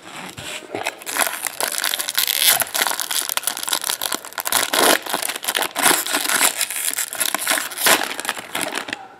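Plastic wrapping crinkling and crackling loudly as it is torn open and crumpled by hand, with many sharp crackles for most of the stretch.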